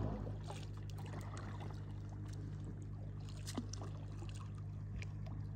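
Kayak paddling: small splashes, drips and water ticks from the paddle blades over a steady low hum of a distant tour boat's engine.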